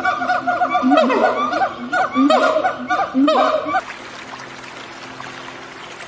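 A primate calling: a run of loud, laughter-like chattering calls with falling slides in pitch, in about four bursts, which stops abruptly just before four seconds in. A steady hiss follows.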